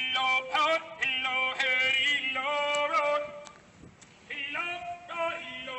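A man singing in held notes that step from pitch to pitch, as music, with a brief lull about four seconds in.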